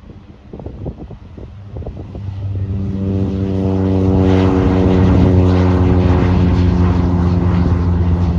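Cessna 208B Grand Caravan's single turboprop engine (Pratt & Whitney PT6A) and propeller drone getting louder over the first few seconds as the aircraft comes close, then running steadily loud with an even propeller hum and a thin high turbine whine above it.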